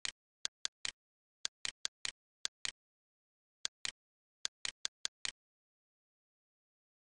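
Computer-generated mouse-click sound effects from the CursorXP cursor software. About seventeen sharp clicks come in quick irregular runs, many of them in close pairs, and stop a little past the middle. Between the clicks the recording is completely silent.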